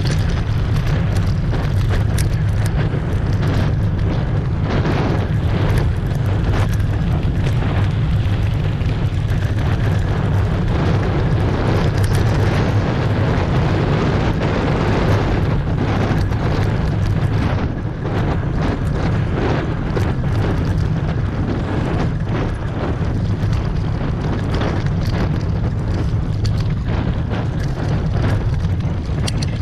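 Wind buffeting the microphone of a mountain bike's on-board camera as it rides fast over a dirt trail, with steady tyre rumble and frequent knocks and rattles of the bike over bumps.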